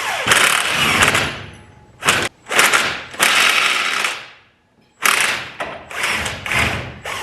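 Impact wrench running in about six short bursts, spinning out motor-mount bolts.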